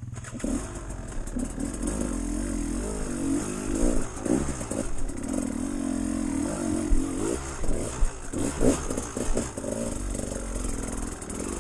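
Off-road vehicle engine working on a trail, its pitch rising and falling as the throttle comes on and off, with a few sharp knocks and clatters along the way.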